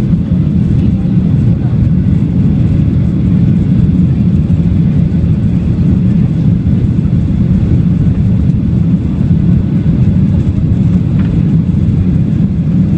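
Steady low cabin roar of a Boeing 737-800 climbing after take-off: its CFM56-7B turbofan engines and the airflow over the fuselage, heard from inside the cabin.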